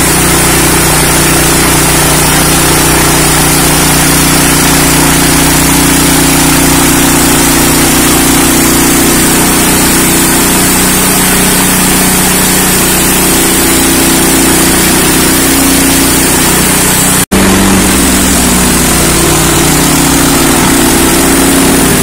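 Hudson Patriot portable band sawmill cutting: its gas engine running steadily under load while the band blade saws through a knotty birch log. The sound breaks off for an instant about 17 seconds in, then carries on.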